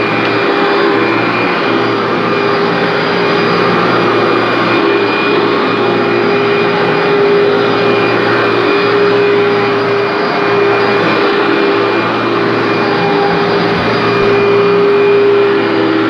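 Commercial upright vacuum cleaner running steadily with a constant motor whine as it is pushed slowly over carpet, pre-vacuuming up dry soil.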